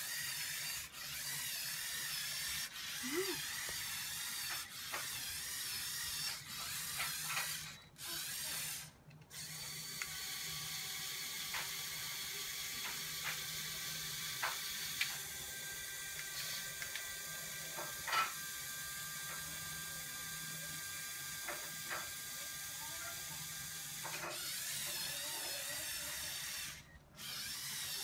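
Small electric motors and plastic gearing of a remote-controlled Lego Technic Volvo L350F wheel loader whirring steadily as it drives and works its bucket arm, with scattered gear clicks. The motors stop briefly a few times.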